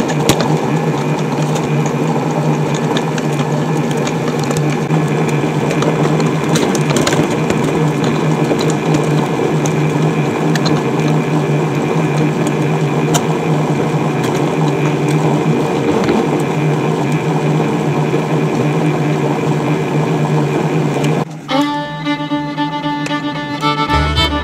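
AMBIANO KM2014DGT food processor's motor running steadily at its slow 'SL' stirring speed, a continuous hum while the vegetable soup cooks. About 21 seconds in it gives way to banjo and fiddle background music.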